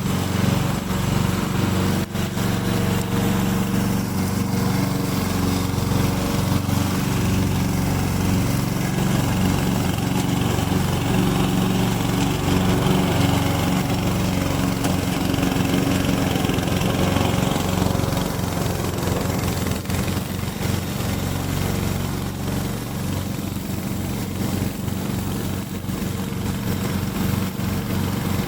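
Remote-controlled slope lawn mower's engine running steadily under mowing.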